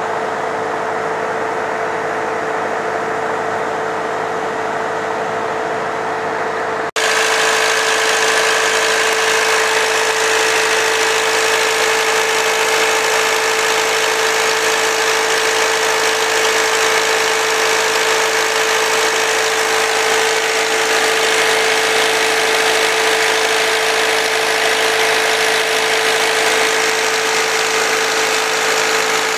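Brand-new four-cylinder diesel engine driving an irrigation pump, running steadily at constant speed with a steady hum over the engine note. It is duller and quieter for the first seven seconds, then louder and brighter after a sudden cut.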